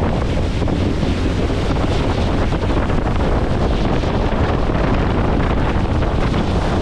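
Loud, steady wind buffeting the microphone, with rushing water beneath it.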